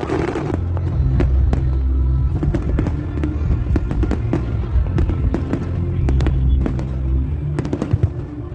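Aerial fireworks going off in quick succession, sharp pops and crackling bangs throughout, over loud music with a heavy bass.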